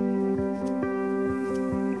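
Instrumental music: held notes over a steady run of plucked notes, about two or three a second.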